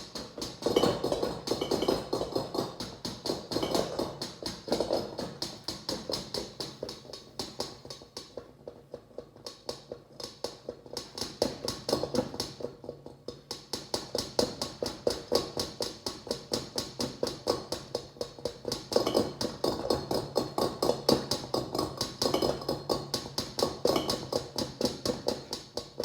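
LG LSXC22396S refrigerator's linear compressor running with a rapid, regular knocking, about five knocks a second, over a low hum, growing louder and softer in turn. The owner takes it for a fault: a noise that should only come when the fridge is moved, heard while it stands still.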